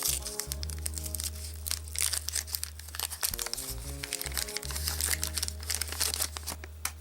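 A baseball card pack's paper wrapper crinkling and tearing as it is opened by hand, in a dense, irregular crackle over background music with a steady bass line.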